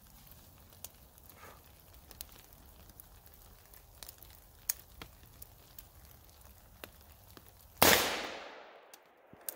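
A single shot from an AR-style rifle near the end: one sharp crack followed by an echo that dies away over about a second. Before it there are only faint scattered clicks.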